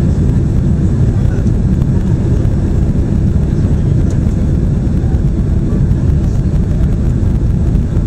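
Steady low rumble of engines and rushing air inside the cabin of a Boeing 767 airliner on its approach to landing.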